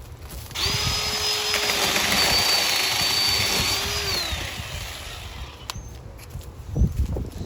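Ryobi 18-volt cordless mini chainsaw running for about four seconds with a steady high electric whine, cutting into a small stick, then winding down with falling pitch. A few low thumps follow near the end.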